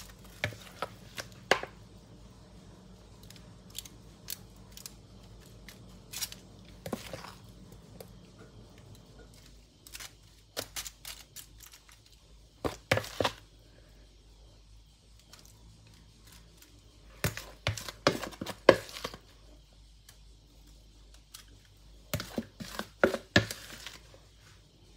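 Plastic spoon scooping thick curry custard into aluminium-foil cups: scattered groups of scrapes and taps against the foil, with the foil crinkling, coming in several bouts with quiet gaps between.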